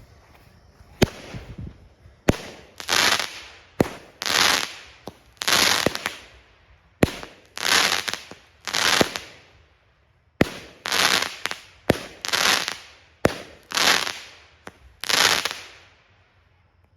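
A 200-gram consumer firework cake, Blue Rain Thunderclap, firing shot after shot. Each sharp launch pop is followed by a crackling break in the air, about ten in all, with a brief pause in the middle.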